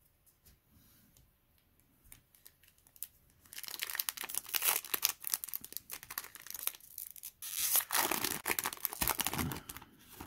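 Foil wrapper of a Yu-Gi-Oh! booster pack being torn open and crinkled in two loud bouts, after a few faint clicks of handling.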